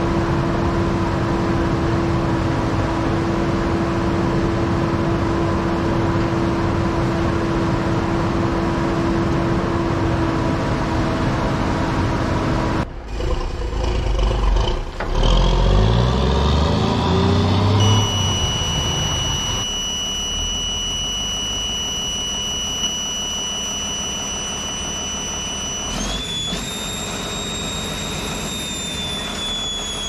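Heavy diesel engines running across several cuts. First a steady run, then a few seconds of revving that climbs in pitch, then an engine running with a high steady whine that steps up in pitch near the end.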